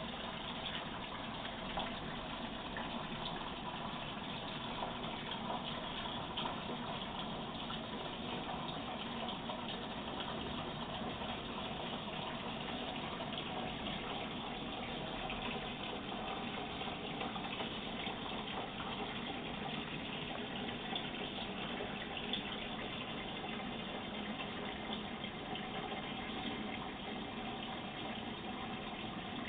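Steady rush of water running through a microbubble water generator's hose into an acrylic tank, the water filled with fine bubbles.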